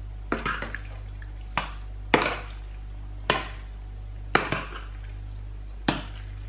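Metal serving spoon clinking against a stainless steel sauté pan as creamy fettuccine is stirred and lifted: six sharp knocks spread over the few seconds, each followed by a brief scrape. A steady low hum runs underneath.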